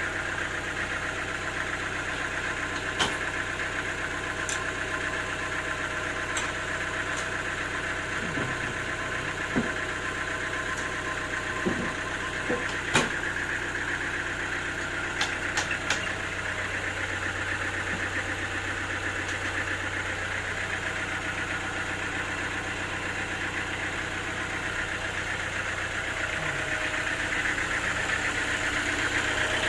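Sawmill machinery running steadily, a motor hum with a few sharp knocks scattered through, growing louder near the end.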